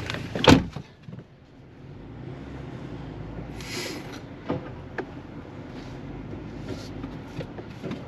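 A Jeep Wrangler's door shuts with a loud thud about half a second in. The Jeep then creeps forward through tall grass, its engine running low and steady, with a brief hiss a little before the middle.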